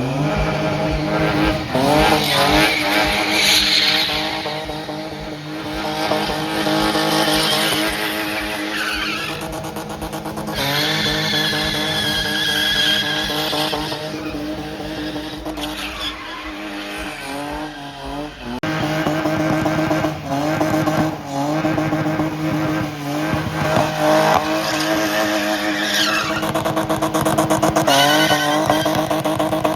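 Car engines revving and accelerating, rising in pitch again and again as through gear changes, with a high tyre squeal through the middle.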